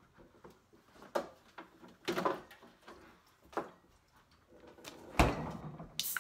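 Refrigerator being rummaged: a few knocks of items and shelves, then the fridge door shut with a heavy thump about five seconds in. Right at the end, a soda can's tab is cracked open with a short, sharp hiss.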